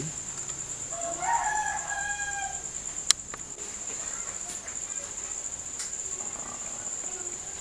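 A rooster crows once, starting about a second in and lasting about two seconds, over a steady high cricket chirping. A sharp click comes about three seconds in.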